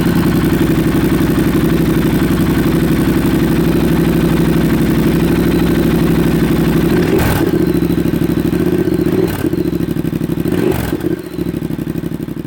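2020 Triumph Speed Twin's 1200 cc parallel-twin engine running loud and steady, with three brief surges about seven, nine and eleven seconds in.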